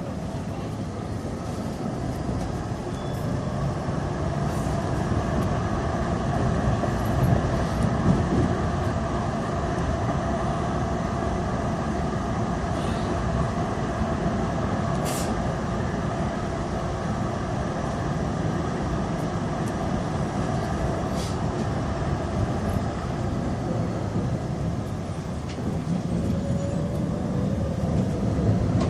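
Tram running on rails: a steady rumble with a faint whine, and a few brief high ticks.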